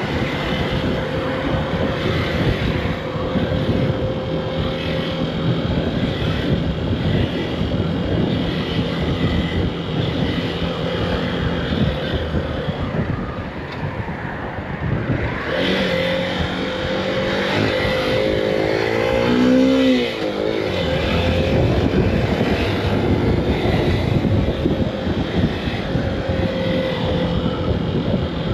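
Honda CB125F's small single-cylinder engine running as the motorcycle filters through slow traffic, with road and traffic noise. About two-thirds of the way through, the engine pitch climbs for several seconds, then drops away suddenly.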